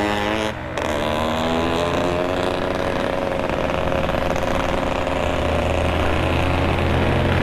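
Vehicle engine accelerating. Its pitch climbs, falls back at a gear change about half a second in, then pulls steadily and slowly rises again.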